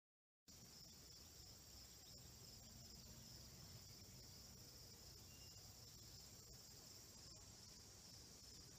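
Faint, steady high-pitched chorus of crickets and other insects, starting about half a second in after dead silence.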